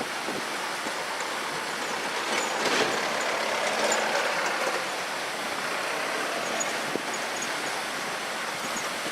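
Steady rush of wind and water, swelling louder for a couple of seconds near the middle.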